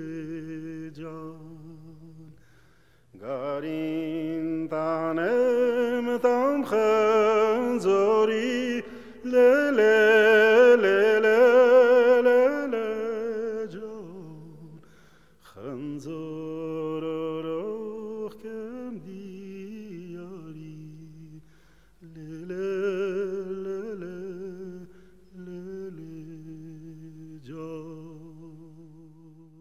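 Background music: a voice singing a slow melody with vibrato over a low held note, swelling in the middle and fading out near the end.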